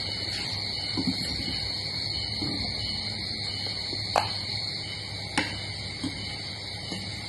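Eating at a table: soft chewing and mouth sounds, with two sharp clicks of tableware about four and five and a half seconds in. A steady high insect drone runs underneath.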